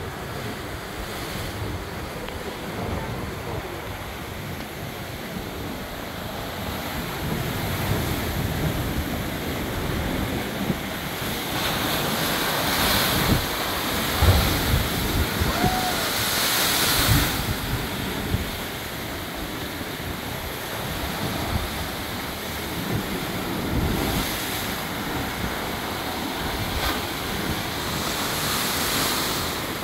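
Heavy surf crashing into a narrow limestone cliff inlet, swelling and falling in several surges, with two sharp booms as waves slam into the rock about halfway through. Wind buffets the microphone.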